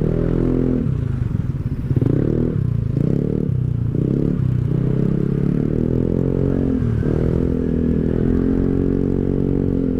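Rusi Rapid 150 scooter's single-cylinder engine running through a full-system aftermarket exhaust with a resonator and the silencer removed, while riding. The note has a bass tone. It rises and falls with the throttle over the first few seconds, then settles into a steady cruise with a brief dip about seven seconds in.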